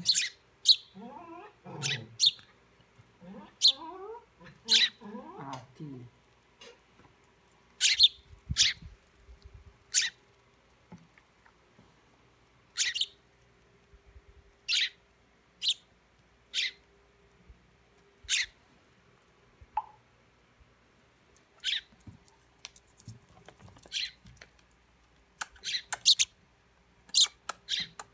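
Sparrow fledglings chirping: short, sharp, high single chirps, one every second or two with gaps between them.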